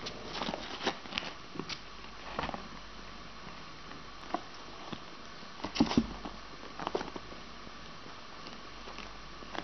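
Irregular soft taps, scrapes and rustles, as of animals shifting on bedding in a cardboard box. A cluster of louder knocks comes about six seconds in, over a faint steady hum.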